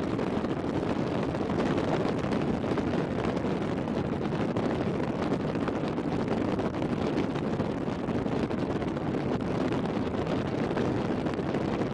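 Steady wind rushing over the microphone on a ship's open deck, an even rumbling hiss with no distinct tones.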